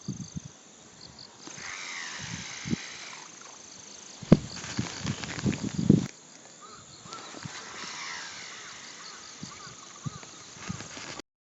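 Short cast with a Shimano 12 Antares baitcasting reel, its spool spinning with a faint abnormal noise that appears when the external brake is set to 2 or lower and the brake pipe has gone without oiling. A sharp knock about four seconds in and low handling knocks follow.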